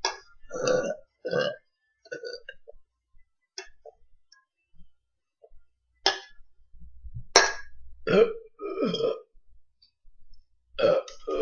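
Deliberate, forced burps from a person: a pair close together near the start and another pair about eight seconds in, with smaller throat noises and a couple of sharp clicks between them.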